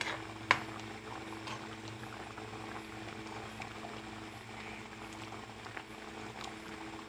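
Fish curry bubbling at a boil in a metal pot, a steady soft bubbling over a low hum. A sharp click about half a second in and a few fainter ticks later.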